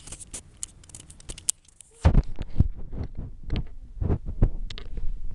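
Irregular low thumps and rumbling with scattered sharp clicks, starting suddenly and loudly about two seconds in.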